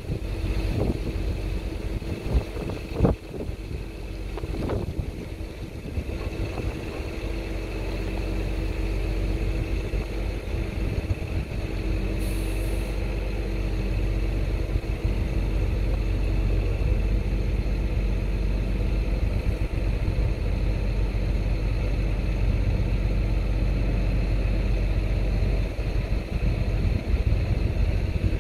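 An engine running steadily, a low hum that grows somewhat louder after the first several seconds. A few sharp clicks and knocks in the first five seconds, from handling metal parts.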